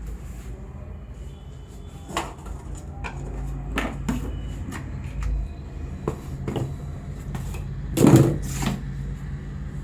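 Hands working over the head and neck in a barber's massage: scattered sharp slaps, taps and clicks, with the loudest, heavier hit about eight seconds in and a second one just after, over a steady low hum.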